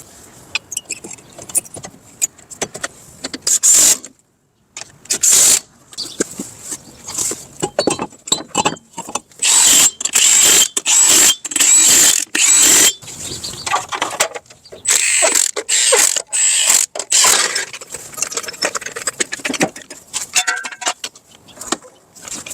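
Tools working on the PT Cruiser's front wheel hub during reassembly: repeated short bursts of mechanical clicking and rattling.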